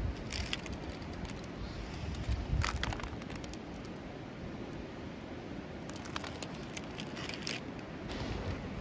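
Wood fire crackling in a camp fire grill, with a plastic food package rustling now and then as it is handled.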